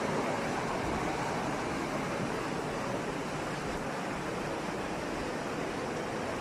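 Flash floodwater rushing down a street in a fast, muddy torrent: a steady, even rush of water.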